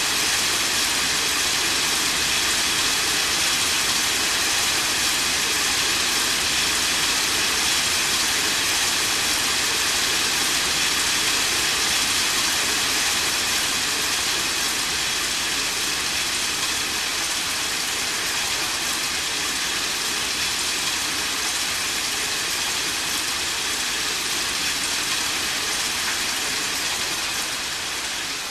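Steady rain falling, an even hiss without thunder, a little quieter in the second half.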